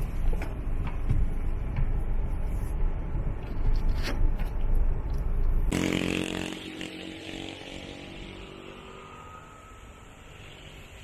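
Road and engine noise inside a moving vehicle's cabin, with a few knocks and rattles. About six seconds in the sound cuts to the roadside, where a car goes by, and then drops to a quieter outdoor background.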